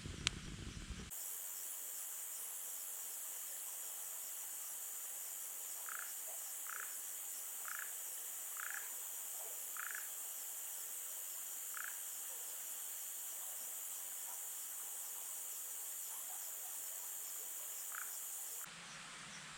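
Steady high-pitched trilling of night insects such as crickets, with a handful of short, separate chirps from another creature over the middle stretch. A single sharp click comes just before the chorus starts.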